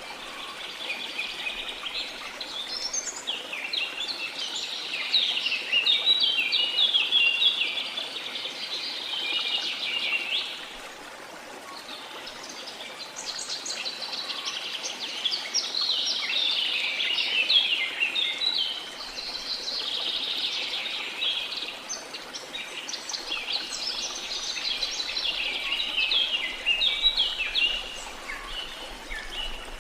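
Birds singing in a dense chorus of rapid chirps and trills, in two long bouts with a short lull about a third of the way through, over a steady soft hiss of flowing water.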